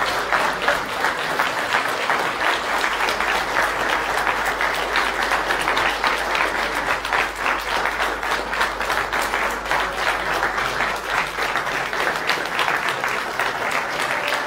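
Audience applauding steadily: many people clapping their hands together.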